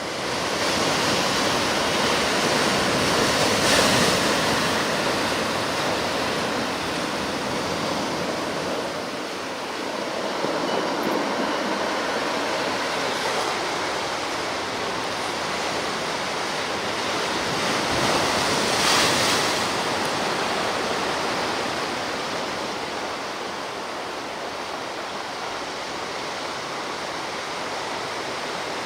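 Sea surf washing ashore in a steady rush, swelling louder as waves break about four seconds in and again near twenty seconds.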